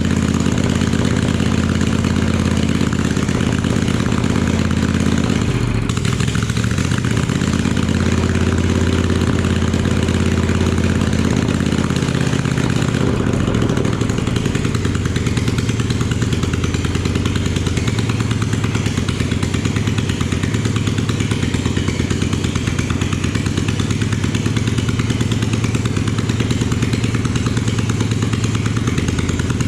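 Kohler CH18 air-cooled V-twin engine running steadily on its first test run after being torn down and reassembled, its speed shifting about six seconds in and again about thirteen seconds in.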